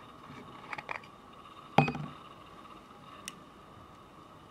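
Burlington pocket watch's metal case back being opened by hand: two light clicks, then one sharp metallic click with a brief ring a little under two seconds in as the back comes off, and a faint click later.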